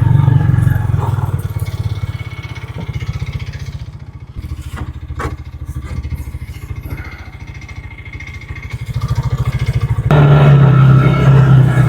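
A vehicle's engine running steadily with a fast even firing pulse, easing off after the start and picking up again about ten seconds in, with a few knocks and clatters.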